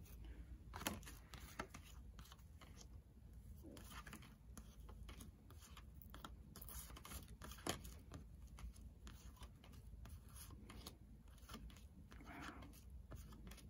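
Cards of a vintage tarot deck being handled and shifted one by one in the hands: faint, irregular paper clicks and slides, with sharper snaps about a second in and near the middle.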